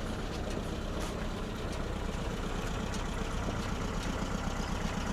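An engine idling steadily with a low hum, and a few faint clicks over it.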